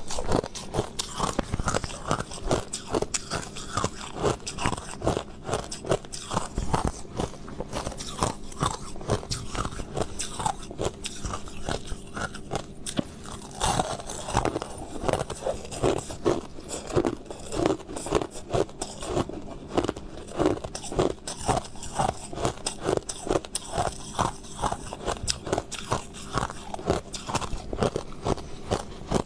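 Crushed ice being bitten and chewed close to the microphone: a steady run of quick, crisp crunches, about two or three a second.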